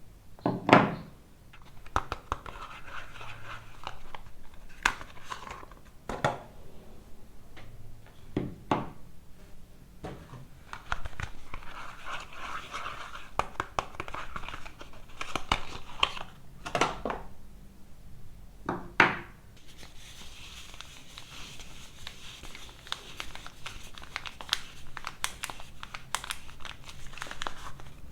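Soap bar wrappers being crinkled and torn open by hand: continuous crinkling and rustling with many small clicks, and several sharper snaps or knocks spread through.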